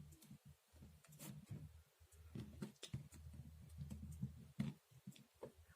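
Faint, scattered small clicks and light handling noise of a resistor and wires being fitted into a breadboard, over a low hum.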